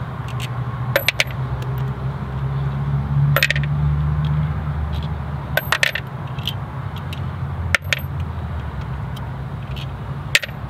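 Sharp metal clinks of nuts and washers being taken off a semi truck's axle-shaft flange studs at the wheel hub, about five of them a couple of seconds apart, over a steady low hum.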